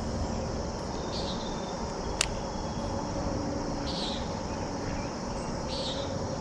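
Outdoor ambience: a steady background hum with three short, high insect chirps spread through it, and one sharp click about two seconds in.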